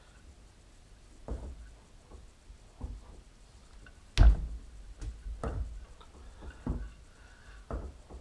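Dividing head being seated and shifted on its metal riser base: about half a dozen separate dull metal clunks, the loudest about four seconds in.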